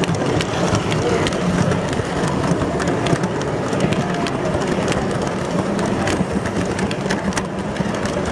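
Model train, a diesel locomotive pulling passenger cars, rolling past close by: a steady hum with many sharp, irregular clicks and rattles from the wheels on the track.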